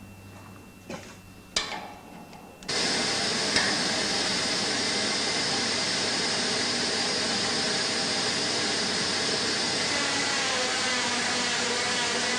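Two sharp knocks, then a self-built bandsaw running with a loud, steady rushing noise that starts abruptly a little over two and a half seconds in.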